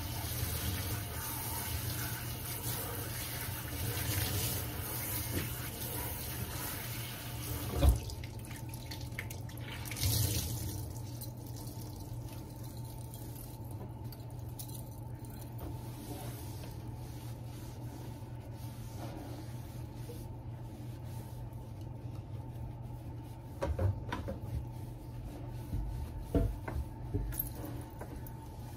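Kitchen tap running into a stainless steel sink while the sink is scrubbed with a cloth. About eight seconds in there is a sharp knock and the running water stops; the rest is quieter wiping, with a few knocks and clatters near the end.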